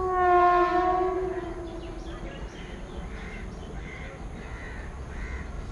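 Locomotive horn of an approaching express train sounding one long blast of about two seconds, loudest at the start and sagging slightly in pitch. Then a bird calls about four times over a low steady rumble.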